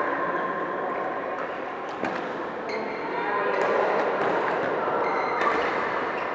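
Badminton hall ambience: a steady babble of voices across the hall, with a few sharp racket-on-shuttlecock hits from the courts, about two seconds in and again near five and a half seconds.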